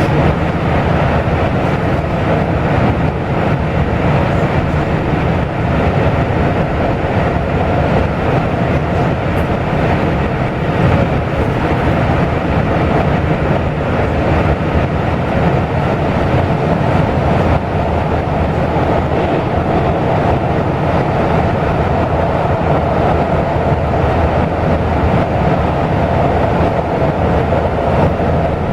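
Taiwan Railway local express train running steadily at speed: a continuous rumble of wheels and running gear, with no distinct clicks.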